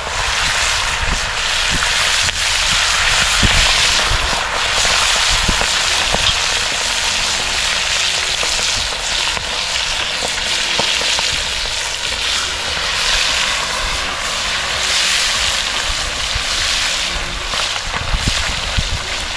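Pieces of armored catfish deep-frying in hot oil in a wok, sizzling steadily throughout, with a few brief knocks.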